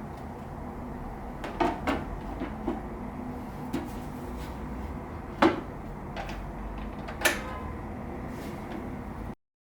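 A few sharp clicks and knocks, like household objects being handled, over a steady low hum; the sound cuts off suddenly near the end.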